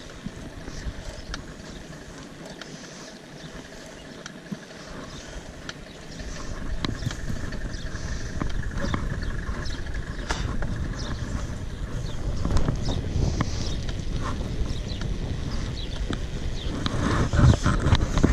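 Wind rushing over the microphone and mountain bike tyres rolling on asphalt during a downhill ride. The rumble grows louder from about six seconds in, with scattered clicks and rattles from the bike and a faint steady whine underneath.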